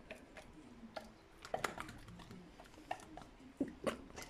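A dog chewing a strand of spaghetti, with scattered light clicks and smacks, several of them in the second half.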